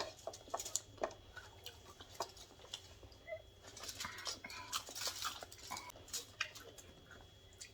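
Quiet eating sounds: scattered small clicks and taps with soft chewing and smacking noises as fish is picked apart and eaten.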